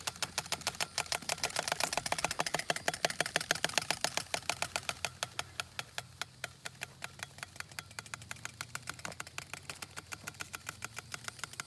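Playing cards clothespinned to the front and rear forks of a Strider balance bike, flapping against the spokes as the bike rolls: a rapid, even clicking clatter meant to sound like a motorcycle engine. It gets a little quieter about halfway through.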